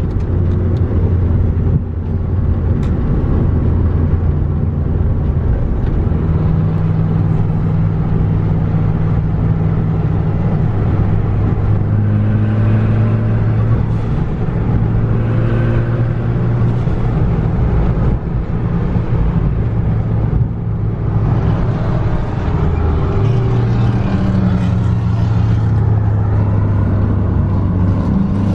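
Ford Focus ST's hybrid-turbocharged 2.0 EcoBoost four-cylinder pulling at freeway speed, with a steady low drone over road noise. Its pitch steps up and down several times as the revs change.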